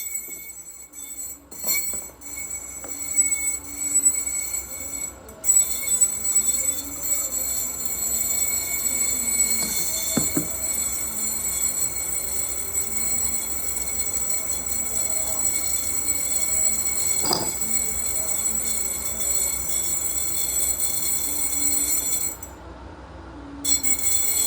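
Small Tesla coil arcing: a steady high-pitched hissing whine, crackling in the first few seconds, that cuts out for about a second near the end before starting again.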